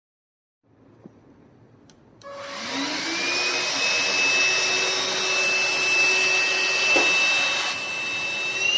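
Tefal X-Nano handstick vacuum cleaner switched on about two seconds in, its motor whine rising in pitch as it spins up, then running steadily with a high whine over a rushing air noise.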